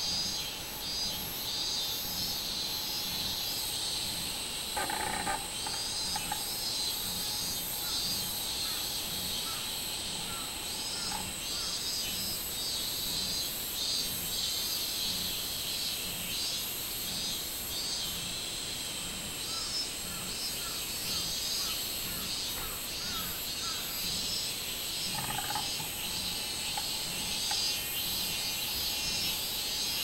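Robust cicadas (minmin-zemi) singing in chorus from the trees: a dense, high-pitched pulsing drone that carries on without a break.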